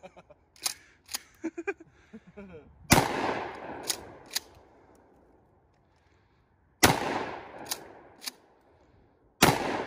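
Three shots from a Mossberg Shockwave 12-gauge pump-action shotgun firing birdshot: about three seconds in, about four seconds later, and near the end. Each loud shot is followed within about a second and a half by two sharp clacks as the pump is worked back and forward.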